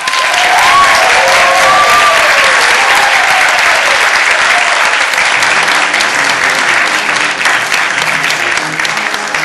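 Audience applause breaking out all at once and going on steadily, with a few rising and falling whoops of cheering in the first few seconds.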